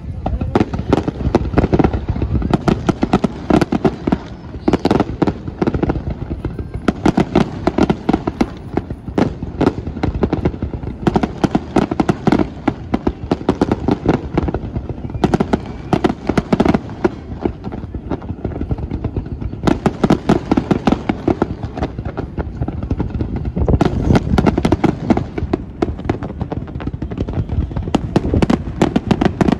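Fireworks display: a continuous barrage of booms and rapid crackling, coming in dense volleys with brief lulls between them.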